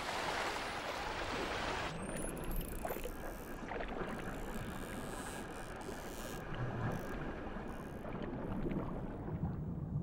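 Sea water sounds: a rushing wash of waves and splashing for about two seconds, then a sudden change to a duller, muffled underwater wash with a few faint ticks.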